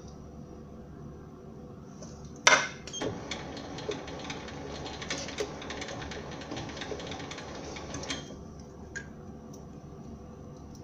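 Sieg SC4 mini lathe switched on with a sharp click about two and a half seconds in. The spindle and chuck then turn with a busy mechanical rattle and ticking for about five seconds before it stops. A low steady hum runs underneath.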